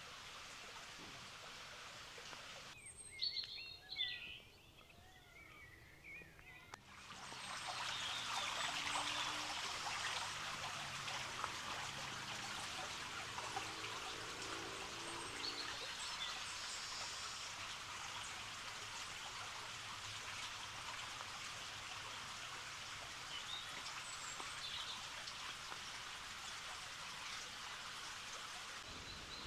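A stream trickling and running, coming in strongly about seven seconds in and then continuing steadily. Birds call over it, most clearly in a quieter stretch just before the water comes in, then in occasional chirps.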